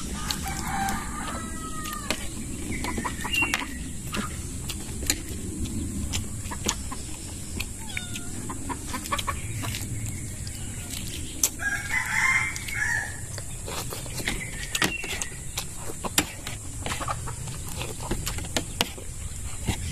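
Chickens clucking, with a rooster crowing; the longest crow comes about twelve seconds in. Short sharp clicks and cracks of crab and snail shells being broken by hand and of a spoon on a plate run underneath.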